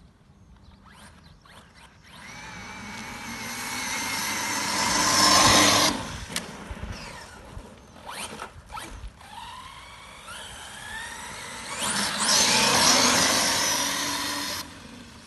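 Radio-controlled truggy's motor whining up in pitch as the car accelerates flat out over sandy dirt, with the tyres hissing on the ground. It builds twice, to loud peaks about five seconds in and again near the end, and each time cuts off suddenly.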